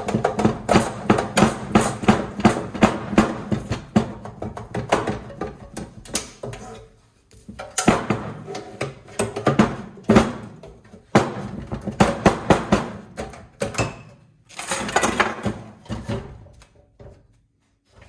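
Rapid run of metal knocks and clanks, in stops and starts, as parts are broken off the gutted gas instant water heater. Background music plays underneath.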